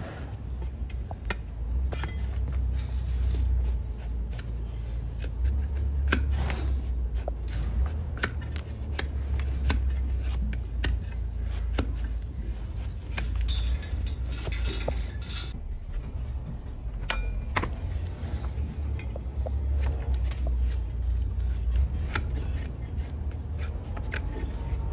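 A heavy cleaver-like blade shaving slices off a donkey's hoof against a metal-topped wooden stool, giving irregular crisp cutting clicks and scrapes. A steady low rumble runs underneath.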